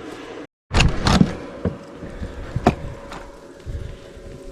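A few knocks and thumps, loudest about a second in, then single sharp clicks spaced about a second apart, over a faint steady hum.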